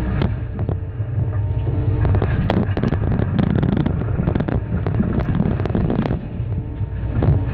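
Excavator diesel engine and hydraulics running under load as a Cat MP318 multi-processor jaw works through concrete rubble, with a rapid series of sharp cracks and knocks from breaking concrete and falling debris through the middle of the stretch.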